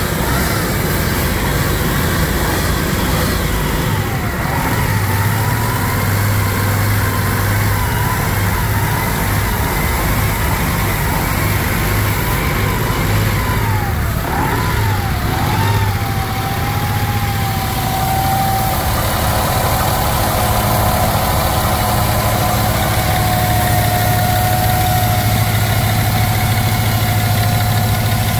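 2019 Cummins ISX12N 11.9-litre CNG engine idling steadily. A whining tone over the engine wavers up and down in pitch, then settles to a steady, slightly lower note about two-thirds of the way through.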